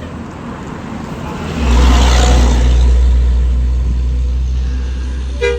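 Tour bus diesel engine rumbling close by. It gets much louder and deeper about a second and a half in and stays strong, and a short horn toot sounds near the end.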